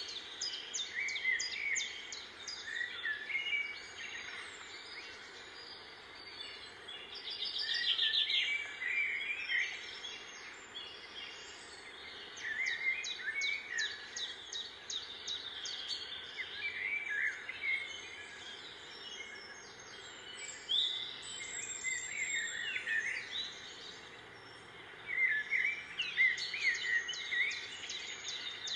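Small birds chirping and twittering in quick bursts that come back every few seconds, over steady outdoor background noise.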